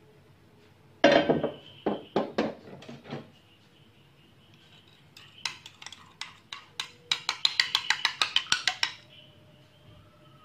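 A metal frying pan clunking a few times as it is set on the gas-stove grate, then a spoon beating duck egg in a ceramic bowl: a run of quick clinks, about six a second.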